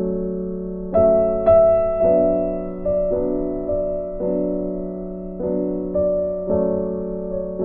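Slow, soft instrumental background music: piano-like notes struck every half second to a second, each ringing and fading, over a steady low held tone.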